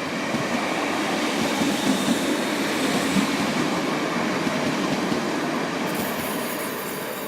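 Class 319 electric multiple unit running through the station: a steady, loud rumble of wheels on rail that eases slightly near the end.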